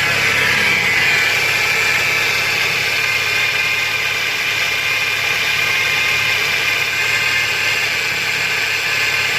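2012 Scion xB's 2.4-litre engine running with a steady high whine from the serpentine belt drive, loudest in the first couple of seconds. The alternator has been ruled out; the noise turned out to come from a failing belt tensioner pulley.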